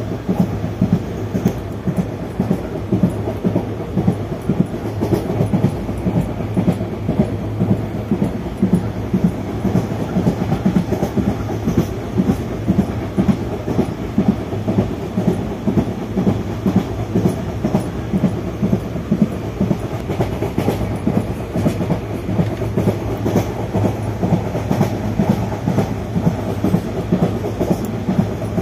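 ICF passenger coaches running on the track, their wheels clattering over rail joints. The sound is a continuous rumble with frequent, irregular clickety-clack beats.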